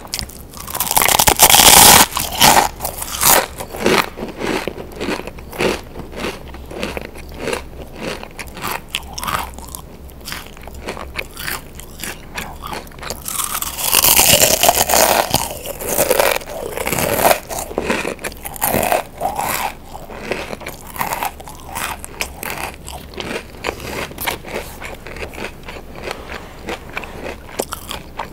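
Pringles potato crisps bitten and chewed close to the microphone: two loud crunchy bites, about a second in and about fourteen seconds in, each followed by a run of crisp crunching chews.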